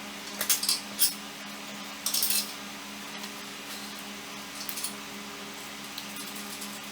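Light metallic clinks and a short rattle of metal hardware being handled as a circulation fan is fitted to its mounting bracket, over a steady low hum.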